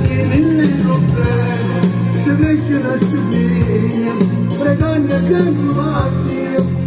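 A preview of a new pop single playing: a singing voice over a full band backing with a steady beat.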